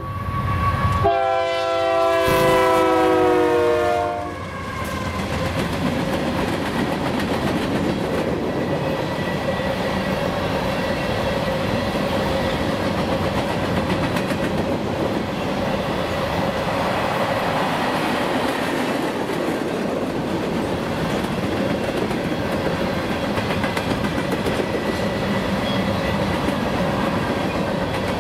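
A Union Pacific GE AC4400CW freight locomotive's air horn sounds twice as it arrives: the end of one blast, then a second blast of about three seconds whose chord sags slightly in pitch as the locomotive goes by. After that come the steady rumble and clickety-clack of loaded grain hopper cars rolling past on the rails.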